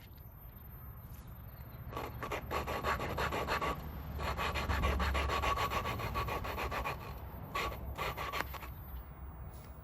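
Engine valve being lapped into its seat with grinding compound: the hand lapping tool is twisted back and forth under light pressure, making a gritty scraping of quick repeated strokes that grows louder and then fades off toward the end.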